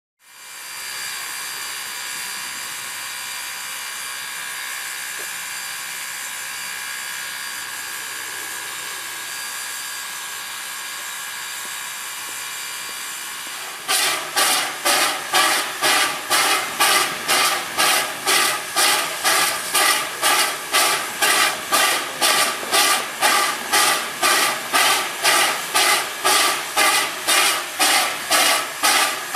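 A 1907 Baldwin 2-6-0 steam locomotive standing under steam with a steady hiss. About halfway through, a loud rhythmic chuffing starts abruptly at about two beats a second and holds an even pace.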